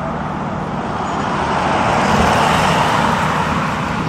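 A road vehicle passing: a steady noise that swells to its loudest about two seconds in and then fades, over a low, steady rumble.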